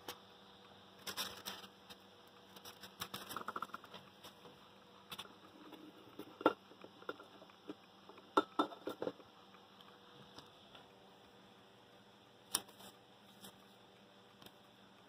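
Handling noises on a tabletop: scattered light clicks, taps and rustles, with the sharpest clicks about six and a half seconds in and a quick cluster about eight and a half to nine seconds in as a clear plastic tumbler lid is lifted and handled, all over a faint steady hum.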